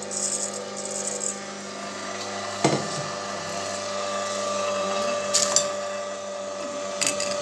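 Electric screw oil press running with a steady motor whine as it begins crushing sesame seeds just fed into its hopper. A sharp knock comes about two and a half seconds in, and brief clicks come later.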